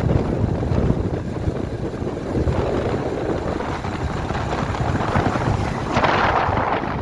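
Wind buffeting the microphone: a steady low rumble, with a louder rushing hiss coming in about six seconds in.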